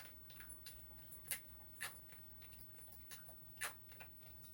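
A few faint, sharp clicks at uneven intervals over a low, steady room hum.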